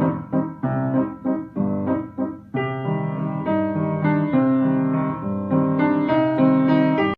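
Piano music: short, detached chords at first, then about two and a half seconds in, fuller held chords.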